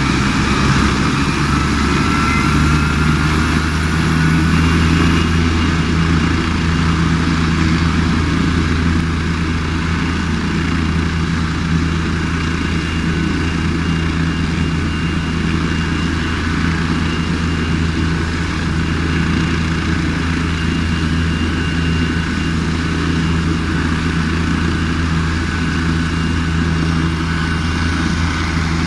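Helicopter running steadily: a constant low rotor and engine drone with a thin high whine above it, and a faint rising whine in the first few seconds.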